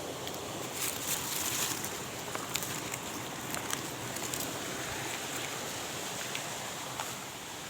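Steady rushing of stream water, with scattered small clicks and taps over it and a brief brighter hiss about a second in.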